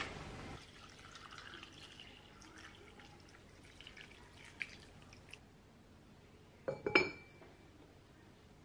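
Quiet kitchenware handling: a few faint taps and drips, then a quick cluster of clinks about seven seconds in, the last one ringing briefly.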